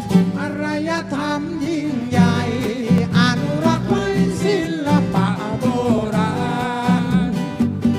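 A band playing a song: a singing voice over strummed guitar, with a steady bass and beat underneath.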